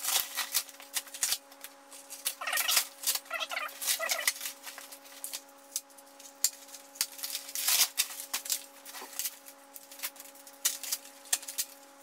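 Cardboard packaging being torn and pulled off a large metal wheel rim: a run of crackling and rustling, with a few squealing rips a few seconds in.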